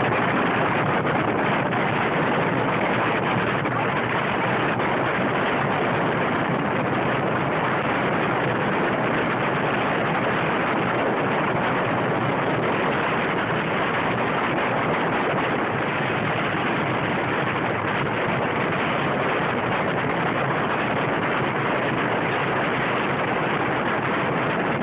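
Open dune buggy driving across sand dunes: a steady rush of wind on the microphone mixed with the buggy's engine and running noise, with no let-up.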